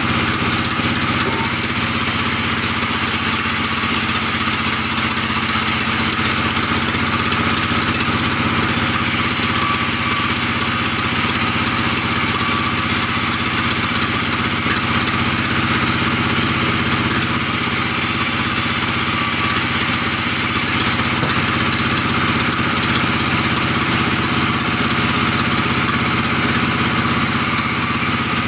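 Sawmill band saw running steadily while albasia timber is fed through it, a constant machine drone. A higher hissing layer from the cut comes and goes several times.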